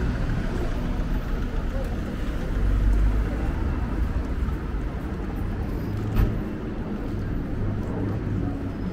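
Busy high-street ambience: road traffic running past and the chatter of passers-by, with a short sharp knock about six seconds in.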